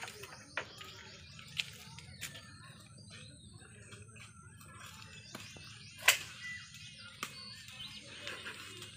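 Birds chirping, with several sharp clicks and knocks from a long pole working among the branches of a mango tree; the loudest knock comes about six seconds in.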